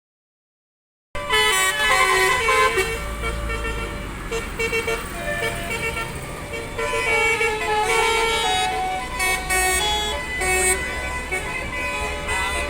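A bus's 'telolet' multi-tone musical horn playing a quick melody of short notes, with a low rumble underneath. It starts about a second in.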